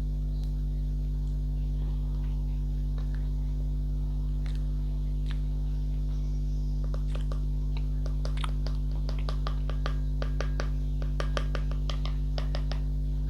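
Steady electrical mains hum throughout, with a run of small quick clicks through the second half.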